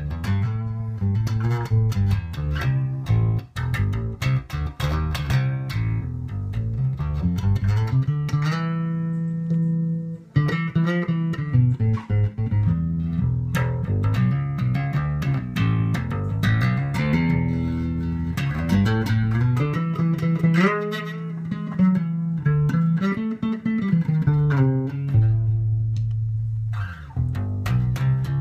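A 2007 Rickenbacker 4003 electric bass with toaster and horseshoe pickups, played through a Hartke LH1000 bass amp with a flat setting and picked up by an iPhone 5's microphone. It plays a continuous bass line of plucked notes, with one note left ringing about nine seconds in and a brief break just after.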